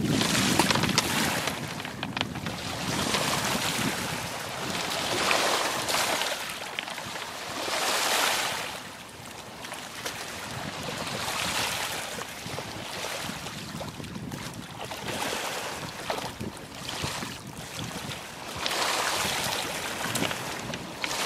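Small waves washing up onto a pebble shore, the hissing wash swelling and fading every few seconds, with a few faint clicks.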